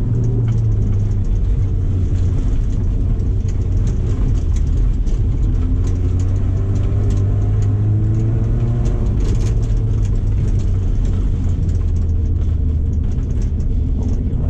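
2007 Subaru Impreza's flat-four engine running hard at race pace, its pitch rising and falling with throttle and gear changes, with scattered clicks over it.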